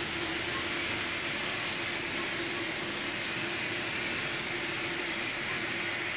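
HO-scale 500 Series Shinkansen model running along the track toward the camera, its sound decoder playing the train's running sound: a steady hum under an even hiss.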